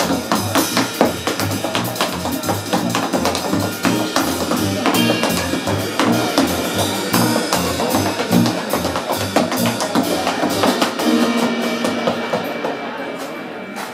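Tap shoes striking a wooden stage in quick rhythms over a live jazz trio, drum kit and a steady bass line. The playing thins out and drops in level near the end.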